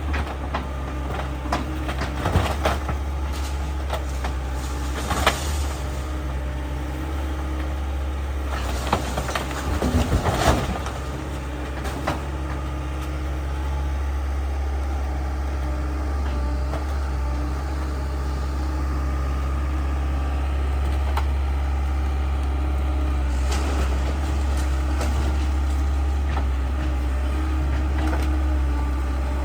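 Heavy engine running steadily with a low hum, as of demolition machinery, with scattered knocks and clatter in the first ten seconds or so.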